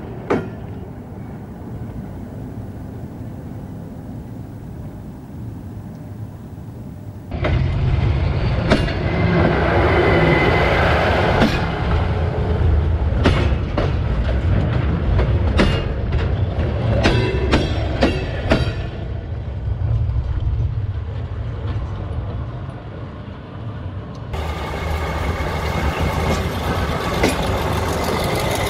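Slow diesel-hauled work train passing over jointed track: a low engine rumble with wheels clacking over the rail joints. About seven seconds in it gets suddenly louder, and a run of sharp irregular clicks follows as wheels cross a bolted rail joint.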